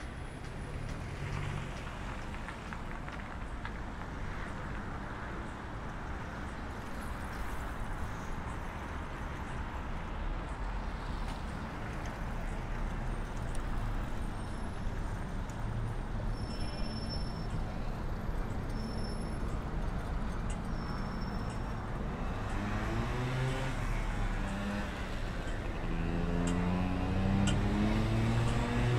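City street traffic: the steady noise of passing cars. Near the end, a vehicle's engine rises in pitch and grows louder as it accelerates.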